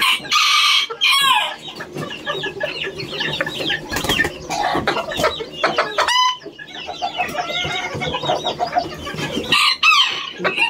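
Many caged chickens clucking and calling over one another, with a loud harsh burst in the first second and a sharp, high squawk about six seconds in.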